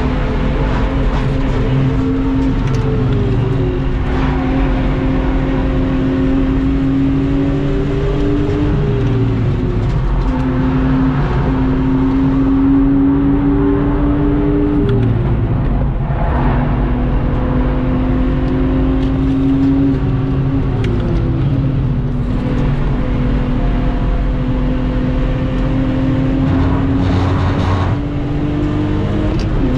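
A stock Lexus IS200 2.0-litre inline-six (1G-FE) engine running hard at high revs, heard from inside the cabin. Its pitch climbs slowly and then drops sharply about four times, as at gear changes or lifts off the throttle.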